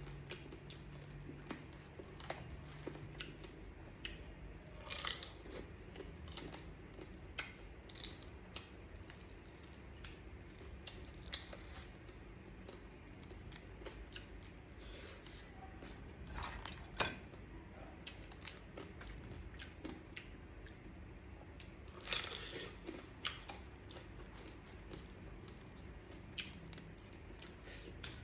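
Mud crab being eaten: the shell is cracked and pulled apart in scattered sharp crunches and clicks, with chewing in between.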